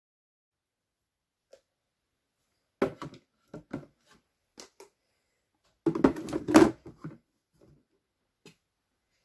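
Plastic food storage containers set down and shifted about in a wooden drawer: a few knocks and scrapes starting about three seconds in, then a louder cluster of knocks and rubbing around six to seven seconds in.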